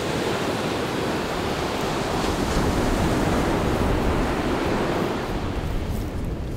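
Sea surf washing onto a sand beach: a steady rushing that swells a little mid-way, with some wind buffeting the microphone.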